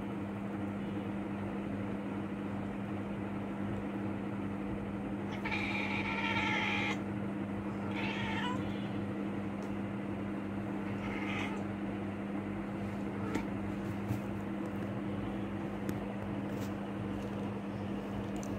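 Domestic cat meowing while stalking a house lizard: one long meow about five and a half seconds in, then three shorter, fainter calls, over a steady low electrical hum.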